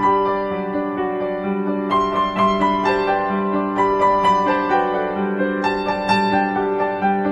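Background piano music: a slow, gentle melody of struck notes over sustained chords.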